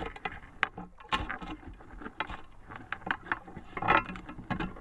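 Small waves slapping and lapping against the side of a small fishing boat, with irregular sharp knocks and clicks; the loudest cluster comes about four seconds in.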